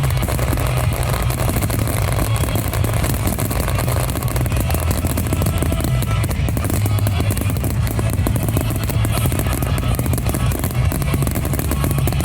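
Loud rock music with a driving drum kit, playing steadily.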